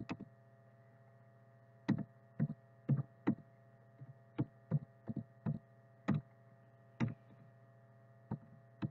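About a dozen separate, irregularly spaced computer keyboard keystrokes as values are typed into a spreadsheet-like table, over a steady electrical mains hum.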